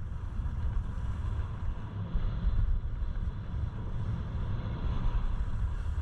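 Wind buffeting the action camera's microphone as a skier runs downhill at about 30 to 50 km/h, a steady heavy rumble, with the rough hiss of skis sliding over packed snow.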